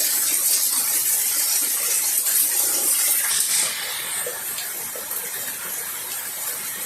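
Heavy rain falling, with water pouring and splashing as a steady hiss. The hiss drops noticeably just past halfway through.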